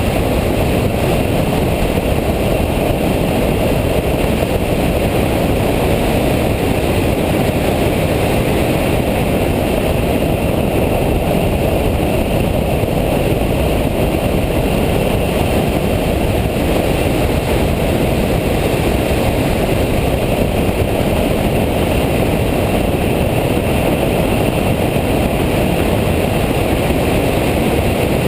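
Nissan sports car driven hard on a racetrack, heard from inside the cabin: loud, steady engine, tyre and wind noise at speed.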